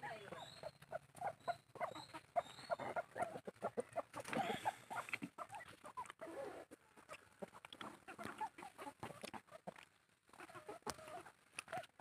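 Chickens clucking, mixed with many short clicks and knocks, and a few short high rising peeps in the first couple of seconds.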